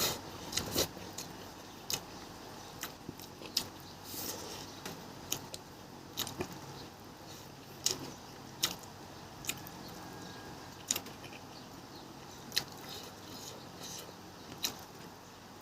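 Close-up eating sounds from a pangas fish meal: scattered small clicks and smacks of chewing and picking at the food, coming irregularly a few times a second over a quiet background.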